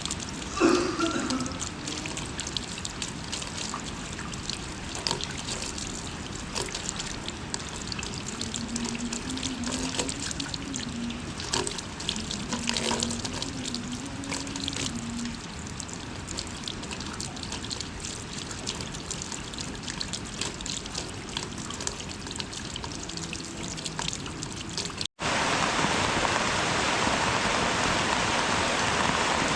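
Light rain dripping and trickling, with many separate drops ticking. About 25 s in it cuts abruptly to a steady, louder, even hiss of rain.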